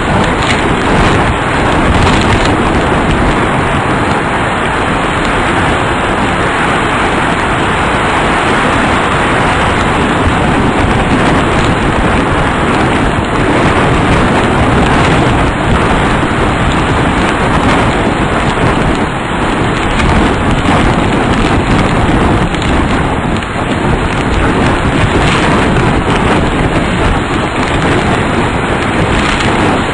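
Tornado wind and heavy rain at ground level: a loud, steady rushing roar with rain hitting throughout and no let-up.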